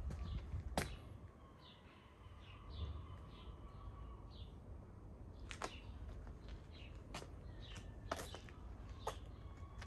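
Small birds chirping in short, repeated high notes, with several sharp clicks at irregular spacing over a faint low rumble.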